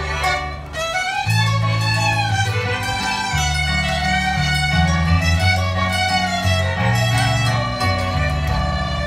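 An ensemble of fiddles playing a waltz tune together, over low bass notes that change every second or so.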